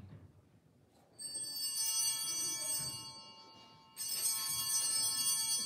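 Altar bells rung twice at the elevation of the chalice, once about a second in and again about four seconds in, each ring a bright cluster of high tones that fades away.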